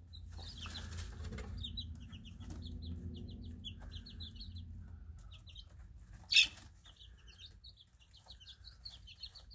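A flock of young Easter Egger chicks, about three weeks old, peeping steadily in many short, rapid high chirps as they peck at a tray of grass, over a low hum. One brief, sharper and louder sound comes about six seconds in.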